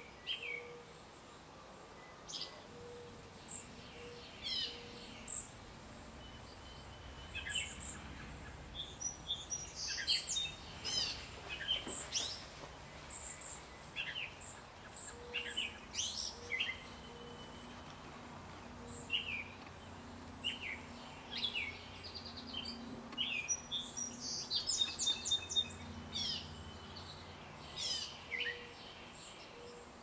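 Wild birds chirping and calling: many short, sharp chirps and brief trills, thickest around ten seconds in and again near twenty-five seconds, over a faint low steady background rumble.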